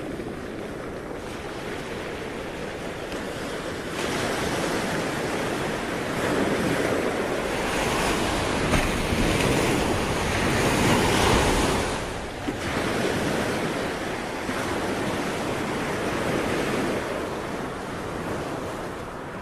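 Sea waves breaking and washing onto the shore. The surf swells from about four seconds in, is loudest around the middle, eases, then surges again more gently near the end.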